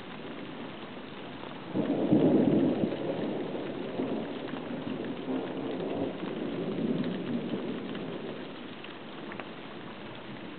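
Thunder breaking out suddenly about two seconds in and rumbling on in swells for several seconds before fading, over steady rain.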